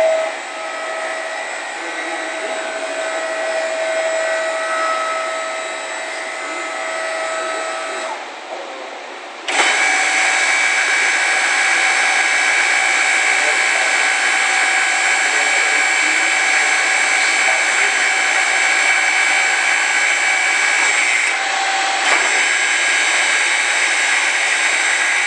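Powered machinery running with a steady motor whine. About ten seconds in it steps up suddenly to a louder, slightly higher whine that holds steady, with a brief dip near the end.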